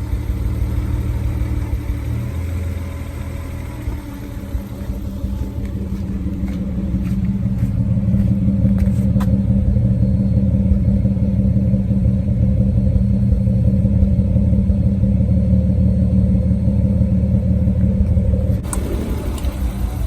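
Nissan Skyline R32's engine running steadily and misfiring. A rushing noise cuts in near the end.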